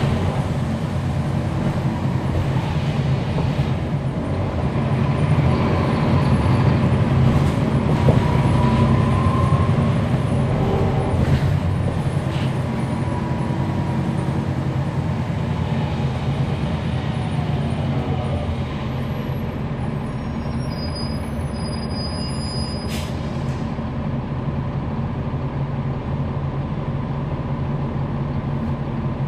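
Cummins ISL9 diesel and ZF Ecolife automatic of a NABI 40-ft transit bus, heard from on board while driving: a steady low drone. It gets louder from about four to ten seconds in, with a faint rising whine around eight seconds, then eases off after about eighteen seconds. There is a brief sharp click or hiss about twenty-three seconds in.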